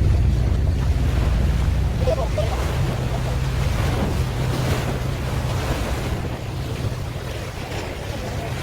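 A boat's engine running steadily, with water rushing and wind buffeting the microphone.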